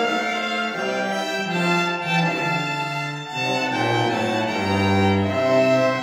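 Slow instrumental music in held, bowed-string-like notes, with a bass line that comes in lower in the second half.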